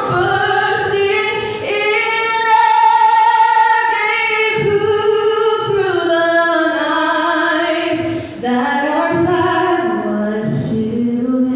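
A woman's voice singing slow, long-held notes that glide from pitch to pitch, with little or no accompaniment heard.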